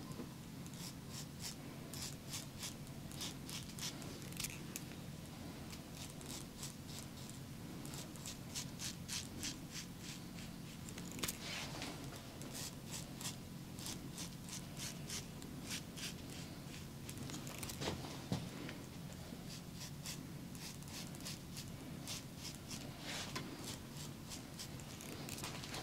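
Barber's blade cutting hair close to the microphone: runs of quick, crisp snipping strokes, a few a second, over a steady low hum.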